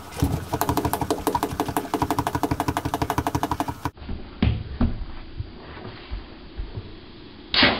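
A fast, even mechanical clatter for about four seconds, then a few knocks. Near the end comes one short, sharp blast of air: the homemade PVC piston-valve air cannon firing at about 60 psi.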